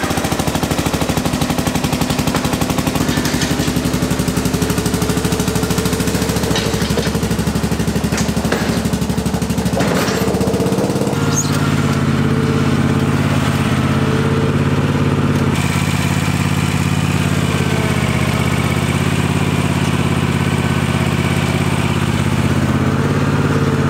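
ATV engine running as the quad pulls out. About 11 seconds in, it gives way suddenly to a zero-turn riding mower's engine running steadily while mowing.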